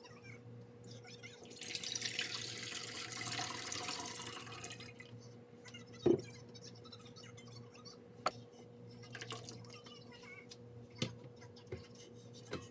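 Water running for about three seconds, then a few light knocks.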